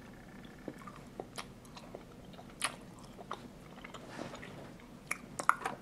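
Quiet mouth clicks and smacks of someone chewing a milk chocolate salted toffee caramel, at an irregular pace.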